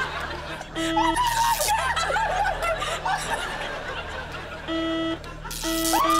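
Buzz-wire game buzzer sounding three times, each a short steady buzz: about a second in, near the five-second mark, and again near the end. Each buzz signals the handheld loop touching the wire. Audience laughter and the player's yelps run around the buzzes.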